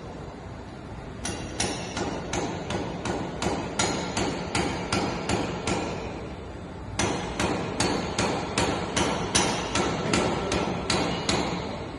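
Rapid, evenly spaced knocks like hammer blows, about three a second, in two runs of several seconds with a short break between them.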